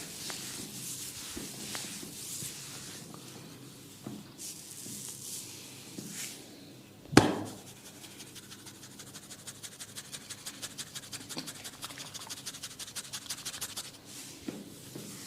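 Hands rubbing and scratching through hair and scalp during a head massage, then a single sharp, loud crack about seven seconds in, followed by a rapid, even run of light taps or clicks on the head lasting about five seconds.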